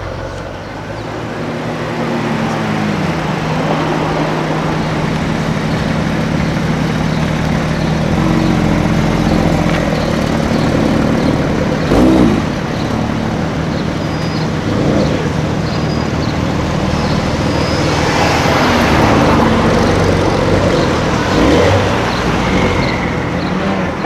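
Car engine running in street traffic, holding a steady low tone for the first several seconds, with a brief loud sound about halfway through and the engine and traffic noise swelling again near the end.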